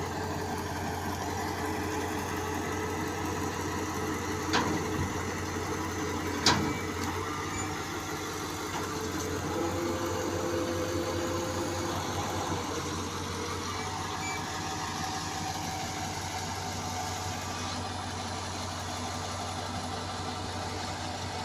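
A crane's engine running steadily at idle, with two sharp knocks about four and a half and six and a half seconds in.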